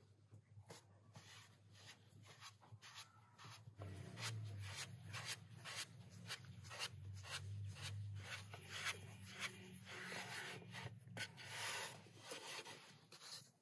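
Hands rubbing, pressing and rolling soft balls of dough on a floured wooden board, a quick run of soft scrapes and pats that grows busier about four seconds in. A low hum sits underneath from about the same point.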